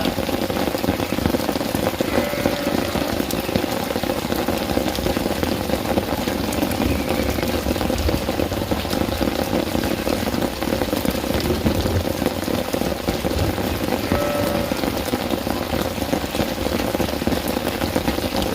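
Steady heavy rain, a dense hiss with many fine drop ticks. A couple of brief faint animal calls come through it, about two seconds in and again near the end.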